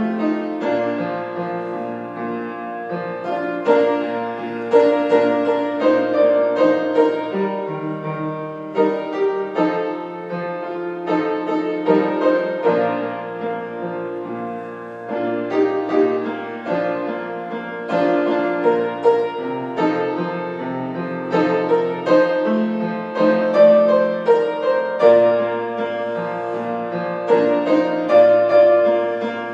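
Piano playing an instrumental piece of slow chords with a melody above and held bass notes.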